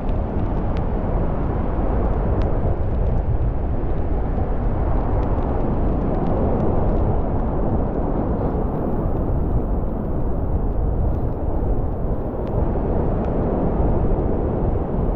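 Strong wind buffeting the microphone in a steady low rumble, with scattered light ticks.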